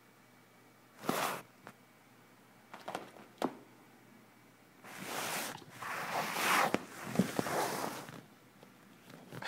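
Rustling and scratching of a cat rolling on its back and pawing at fabric and the floor: a short rustle about a second in, a few light ticks around three seconds, then a longer spell of scrabbling and rustling from about five to eight seconds.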